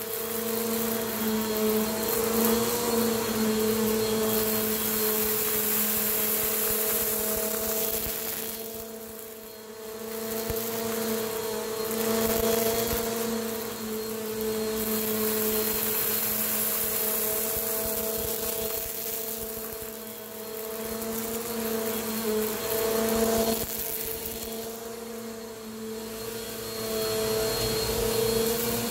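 Bissell PowerForce upright vacuum cleaner running over carpet: a steady motor hum with a rushing hiss of suction that swells and fades as it is pushed back and forth, dipping briefly about three times.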